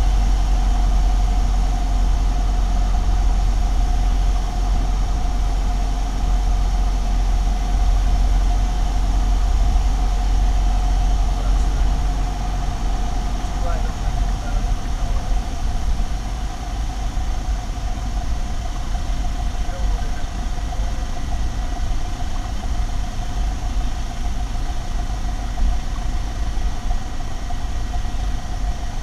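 Single-engine propeller aircraft's piston engine and propeller droning steadily, heard from inside the cockpit, with a deep rumble and a steady hum; it gets a little quieter about halfway through.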